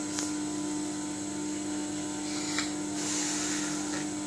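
A steady machine-like hum with a constant tone, joined by a faint short click or two.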